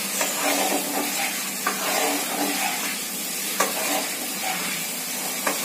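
Garlic frying in hot oil in a metal kadhai, sizzling steadily as a spatula stirs and scrapes it, with a few sharp knocks of the spatula against the pan.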